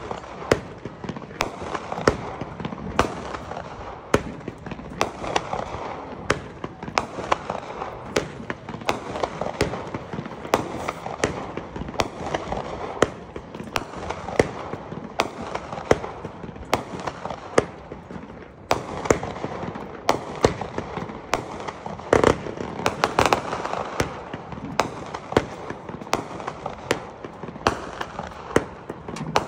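A 500-gram, 66-shot consumer firework cake firing a long, continuous sequence of sharp reports, several a second, with a few louder bangs about two-thirds of the way through.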